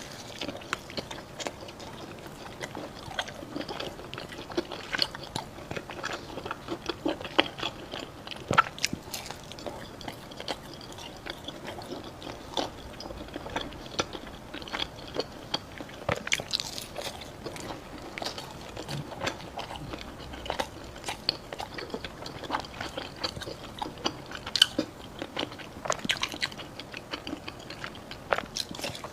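Close-up biting and chewing of mi san dao, a syrup-glazed fried Chinese pastry: irregular crunches and chewing sounds, with a sharper bite every second or two.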